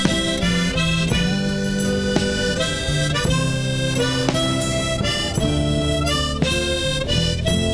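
Background music: an instrumental passage of a song, held melody notes over a changing bass line, with no singing.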